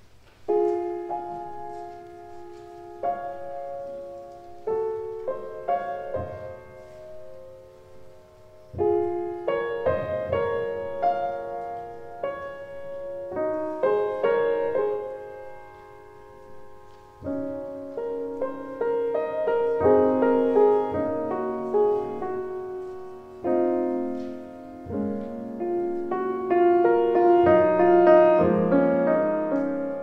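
Slow instrumental piano music, single notes and chords struck one after another, growing fuller and louder in the second half.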